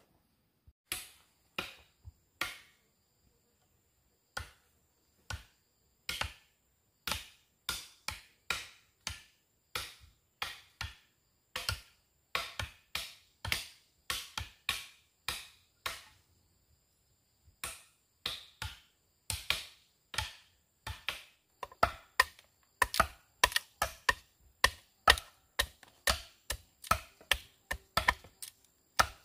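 Machete chopping: sharp single strokes about one a second, coming faster, about two a second, in the last third.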